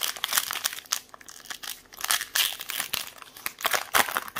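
Foil wrapper of a baseball card pack being torn open and crinkled by hand: an irregular run of sharp crinkles and rips.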